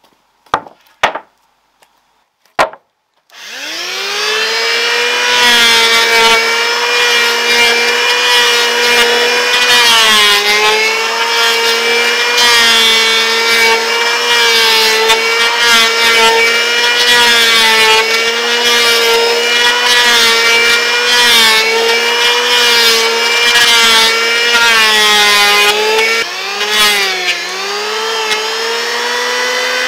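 A few light clicks, then about three seconds in an electric hand planer spins up and runs with a steady high whine while it shaves a wooden board. Its pitch dips now and then, most clearly near the end.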